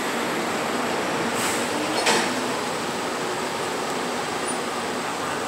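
Steady noise of vehicle engines and street traffic, with a short sharp knock about two seconds in.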